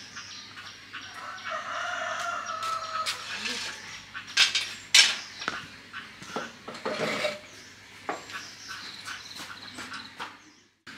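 A rooster crowing once, a long held call starting about a second and a half in, followed by several sharp wooden knocks and clatter, the loudest two around the middle.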